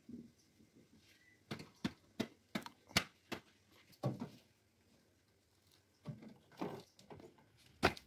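A cloth wiping down a tractor's plastic steering wheel and side mirror: short rubs with light knocks and clicks at irregular intervals, a dense run in the first half, a few longer rubs later and one sharper knock near the end.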